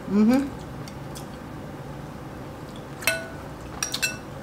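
A metal spoon clinking against a glass bowl: one sharp ringing clink about three seconds in, then a few lighter clinks near the end.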